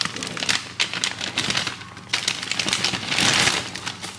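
A plastic bag of broccoli crinkling and rustling as it is handled, with many small crackles and a louder, fuller rustle about three seconds in.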